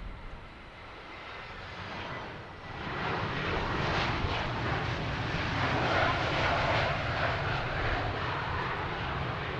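Jet airliner's engines, a rushing roar with a low rumble that grows louder about two and a half seconds in and then stays loud.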